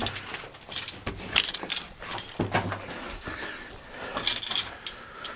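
Metal climbing gear clinking and rattling in irregular, scattered clicks, with rustling as someone moves about after a rope ascent.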